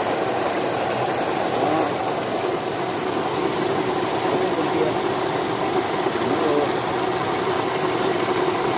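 A 500 W micro-hydro turbine and generator running, a steady machine hum over the rush of water pouring through and out of the turbine. The unit is failing: its bearings are worn and the generator coil is overheating.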